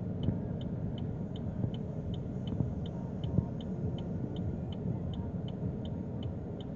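An electronic warning bell beeps in a high, single tone about three times a second, evenly, over a steady low rumble.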